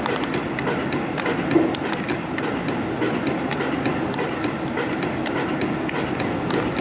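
CNC compression spring coiling machine running, coiling wire into conical springs: a steady mechanical clatter with sharp clicks about three times a second and one louder knock about one and a half seconds in.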